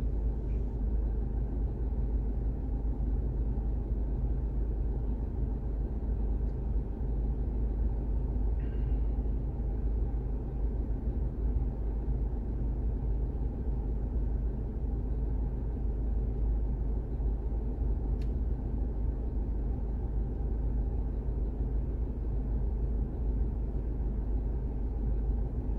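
Car engine and road noise heard from inside the cabin: a steady low rumble while driving in slow town traffic.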